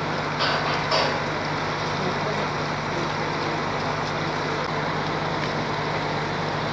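Engine of heavy lifting machinery running steadily with a constant low hum, with a couple of short sharper knocks about half a second and a second in.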